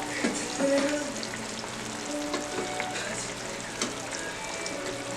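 Pork belly slices (liempo) sizzling as they fry in a pan, with scattered sharp clicks of a utensil against the pan.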